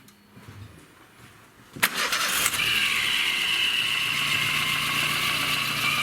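Lada Kalina engine cranked and started about two seconds in, then running with a steady, high-pitched squeal on top. The mechanics trace the squeal to the belt tensioner rollers, chiefly the timing-belt tensioner on an overtightened belt.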